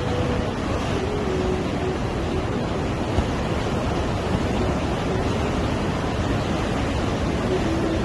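Rough sea surf breaking and washing over rocks along the shore, a steady wash of noise.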